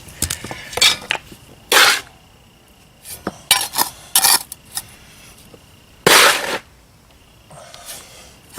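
Hand tools working on pavers and sand: sharp clinks and knocks, with two longer scrapes, one about two seconds in and one about six seconds in.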